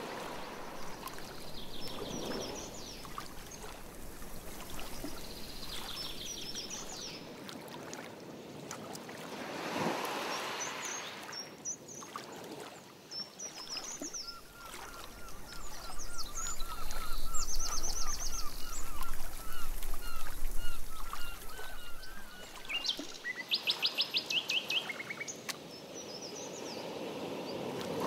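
Songbirds singing from the shoreline trees: scattered chirps and trills, a long run of quick repeated notes through the middle, and a fast high trill near the end. Soft water swishes of a canoe paddle stroke come about two seconds in and again near ten seconds.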